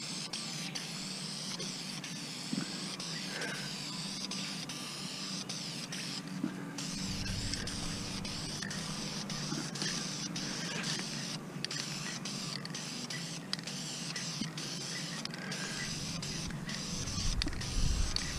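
Aerosol clear-coat spray can hissing steadily as a dust coat is sprayed onto an alloy wheel, with a few short breaks in the spray.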